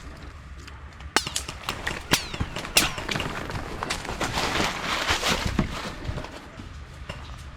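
Three sharp cracks about a second apart, then a few seconds of dense crunching and rustling, like footsteps moving quickly through brush and gravel.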